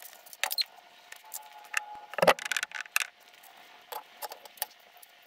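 Scattered light metallic clinks and clicks from parts and tools being handled on a Ford C6 automatic transmission, with one heavier knock about two seconds in.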